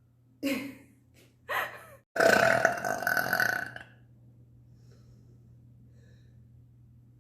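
A woman burping: two short burps in the first two seconds, then a long, loud burp lasting nearly two seconds.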